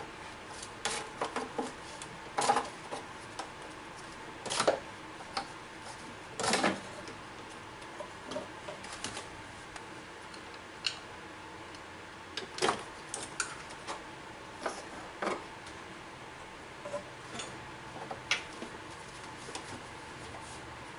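Irregular clicks, clinks and knocks of hand tools and parts being handled during work on the car, spaced unevenly with a few louder knocks, over a steady faint hiss.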